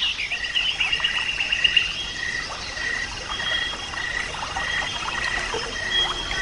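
Outdoor animal calls over a flooded rice paddy: a short high note repeated steadily, somewhat under twice a second, with a fast trill just above it and a few quick chirps near the start.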